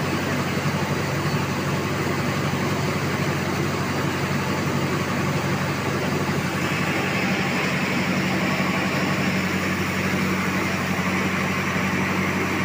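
Rice polishing machine running steadily: a constant motor hum under a rushing hiss of grain moving through the machine, the hiss growing a little stronger about halfway through.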